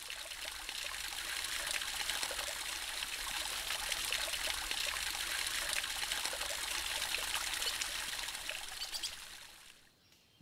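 Steady trickle of running water, fading out near the end.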